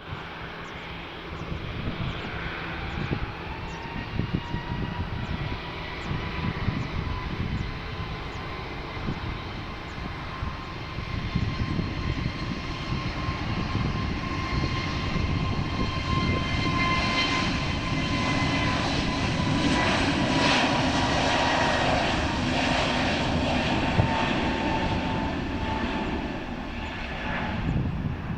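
Airbus A321neo's CFM LEAP-1A turbofan engines at takeoff power as the jet departs: a steady high whine over a deep rush. The whine rises in pitch during the first few seconds, and the sound swells to its loudest after about two-thirds of the time, then eases off.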